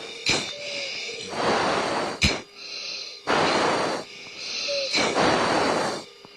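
Heavy, forceful breathing into an F-16 oxygen-mask microphone: several long rushing breaths with sharp clicks between them, the strained breathing of a crew member pulling high G.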